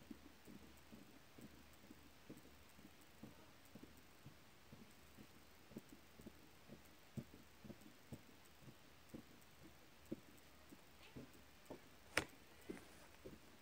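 Near silence inside a car: faint, irregular small ticks, two or three a second, and one sharper click near the end.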